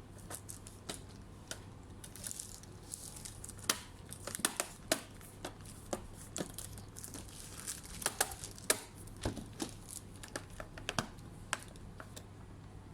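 Plastic packaging crinkling and rustling as it is handled, with irregular small clicks and taps throughout.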